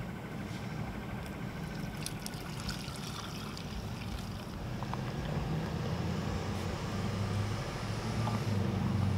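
Soapy water trickling as it is poured from a plastic measuring cup into an upright PVC pipe fitting. Under it runs a steady low rumble that grows louder toward the end.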